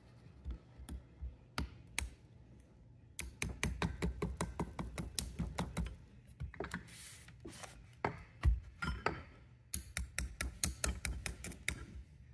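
Light metallic clicking and clinking of pliers on a piston as a wrist pin retaining clip is worked into its groove, in quick runs of small clicks, busiest in the middle and again near the end.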